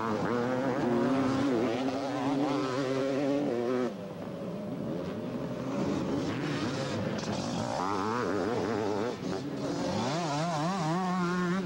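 Two-stroke motocross bikes racing, several engines revving up and down rapidly as the throttle is worked. The engines fade about four seconds in, then more bikes come up, revving, near the end.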